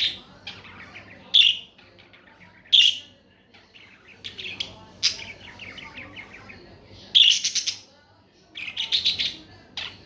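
Pet budgerigars chirping: loud, sharp calls every second or so, some in quick runs, with a quieter chattering warble between them.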